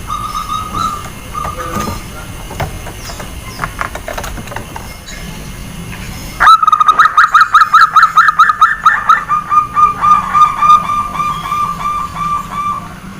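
Zebra dove (perkutut) cooing. A call trails off at the start. About six and a half seconds in, a loud new song starts abruptly with a fast run of rising-and-falling coos, then settles into an even train of lower, rapid coos that stops near the end.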